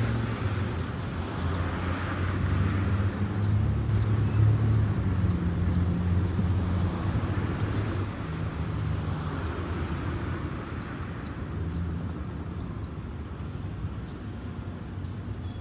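City street traffic noise: a steady low rumble of road vehicles with a few low engine hums shifting in pitch, easing off gradually toward the end.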